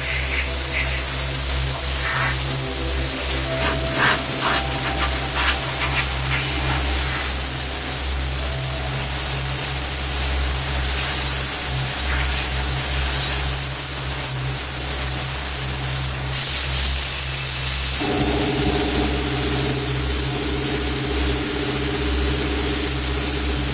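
Compressed-air spray gun with a gravity-feed paint cup hissing steadily as it sprays paint, over a low steady hum.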